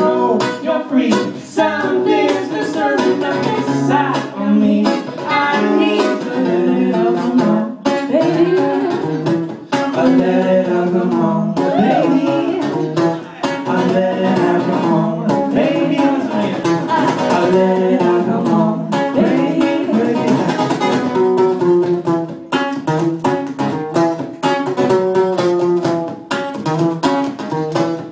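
A live pop song: a strummed acoustic guitar with singing over it, played loud through the venue's sound system.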